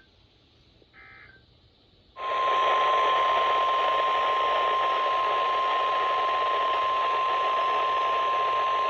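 NOAA Weather Radio alert audio: two brief warbling digital data bursts, then about two seconds in the steady warning alarm tone comes on over radio static. The tone signals that a new warning follows.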